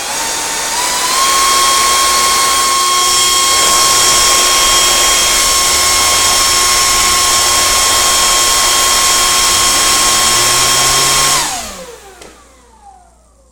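An electric air blower runs at full speed with a high whine, driving a fidget spinner. The whine steps up in pitch over the first second as the speed is raised, then holds steady. About eleven seconds in, the air noise cuts off and the whine slides down in pitch as the spinner and blower spin down.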